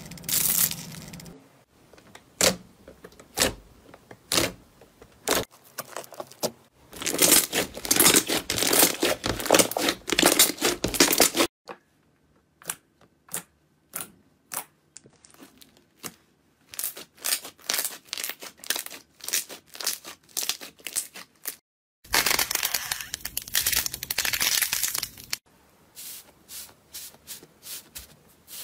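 Hands kneading, poking and pressing slime in several short clips. The slime gives stretches of dense sticky crackling and rows of quick, sharp popping clicks, with brief quiet gaps between. At the start the slime is mixed with foam beads.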